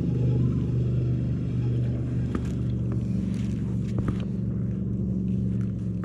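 A motorboat engine running steadily with a low, even hum, with a few faint clicks over it.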